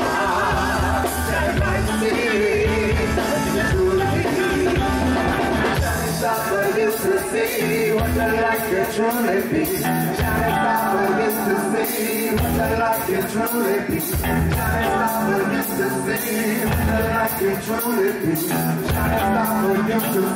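Live soul band playing with a singer. Cymbals beat out a steady rhythm from about six seconds in.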